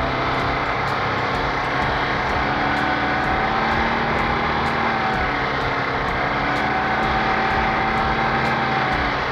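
A vehicle engine running steadily, its pitch wavering slowly up and down.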